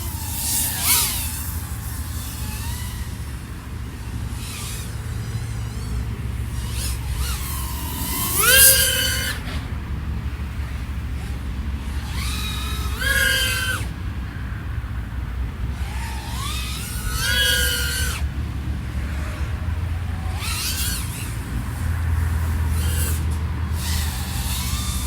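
iFlight AOS 3.5 V5 FPV quadcopter in flight, its XING 1504 3100KV motors giving a steady low hum. Several times the motor whine rises sharply as the throttle is punched, the loudest about a third of the way in.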